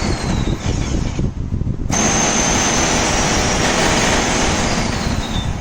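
USHA FP 3811 food processor's 1000 W motor running with the slicing disc fitted, slicing carrots in the processing bowl. About two seconds in the noise grows fuller and louder and a steady high whine sets in.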